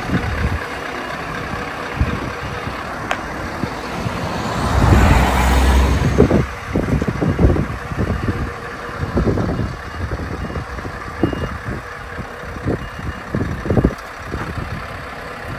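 Scania V8 truck engine running as the truck manoeuvres to park, swelling louder about five seconds in, with reversing beeps. Irregular low thumps run through the second half.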